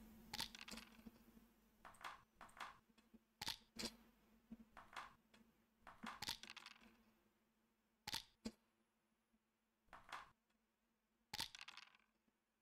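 Near silence broken by about a dozen faint, sharp clicks at irregular intervals, some in quick pairs and a few with a short ring, from moving checkers and rolling dice in an online backgammon game on a computer.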